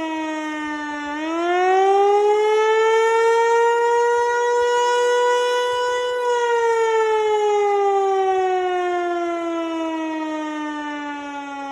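American Signal Eclipse 8 outdoor warning siren sounding a test wail. Its pitch dips, climbs steeply about a second in and holds high, then slides slowly down again from about six seconds on.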